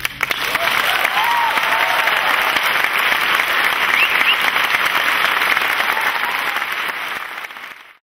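Audience applauding, a dense steady clatter of many hands that fades out near the end.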